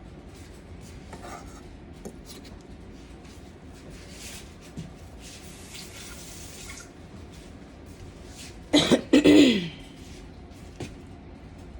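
Small clicks of kitchen handling, with a short hiss of water running from a tap about five seconds in. About nine seconds in, a person coughs loudly in two bursts.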